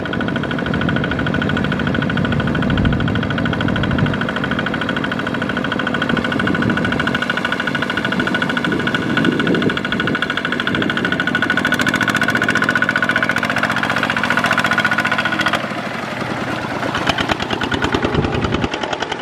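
Single-cylinder diesel engine of a Kubota walking tractor running steadily under load, with a fast, even chugging, as it pulls a loaded trailer through paddy mud. The engine note shifts about three-quarters of the way in.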